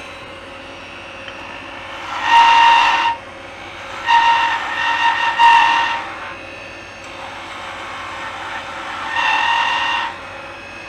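Turning tool cutting a spinning maple spindle on a wood lathe: three cuts, about two seconds in, about four seconds in and near the end, each with a high steady whistling whine over the hiss of the cut. The lathe's steady hum runs between the cuts.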